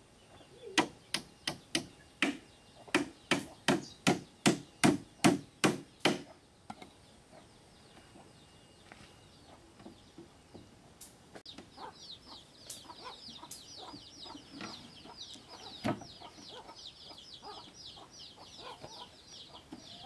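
A blade chopping: about fourteen quick, sharp strokes at roughly two and a half a second, stopping about six seconds in. Later a fast run of high, falling chirps continues to the end.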